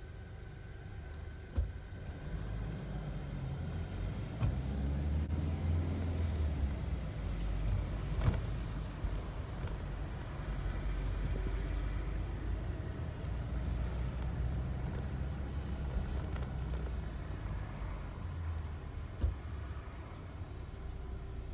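Steady low rumble of a Nissan car driving, heard from inside the cabin, with a few light knocks and clicks scattered through it, the sharpest about eight seconds in.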